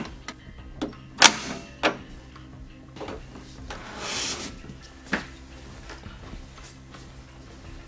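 Hard knocks and clunks of a display panel and its hard case being handled, the loudest a little over a second in. About four seconds in comes a brushing rub as the panel slides up out of its foam-lined case.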